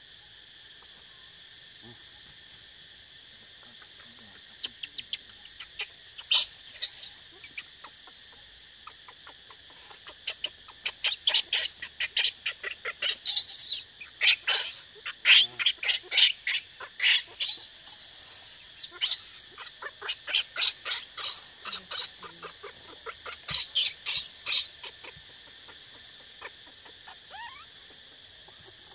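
Steady high-pitched insect drone of forest insects, with bursts of rapid, high chirping calls from a bird, thickest from about 10 to 25 seconds in.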